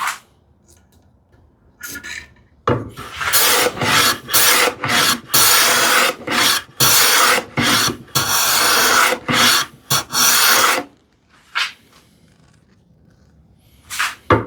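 Hand plane shaving the edge of a Baltic birch plywood panel: a run of about ten short scraping strokes, with a pause near the end before the strokes start again. The panel is being planed down to fit its frame grooves, and the dense plywood is giving the plane a hard time.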